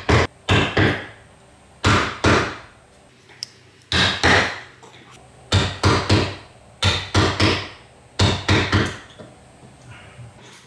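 Pencil scratching firmly across the face of a wooden block as an outline is drawn, in short hard strokes that come in quick groups of two or three every second or two.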